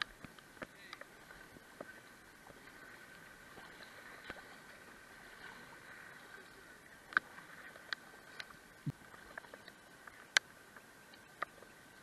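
Faint, steady rush of river water flowing over shallow rapids. Several sharp taps come in the second half, the loudest about ten seconds in.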